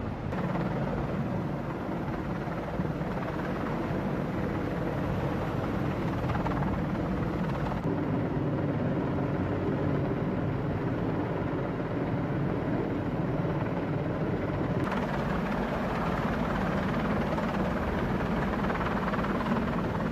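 Steady engine rumble of heavy machinery, changing abruptly about 8 and 15 seconds in.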